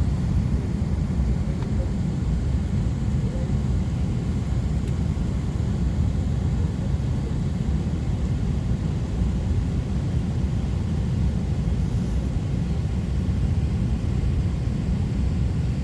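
Steady low rumble of an Airbus A380-800 heard from inside the passenger cabin, the engines and airframe running at an even level with no changes.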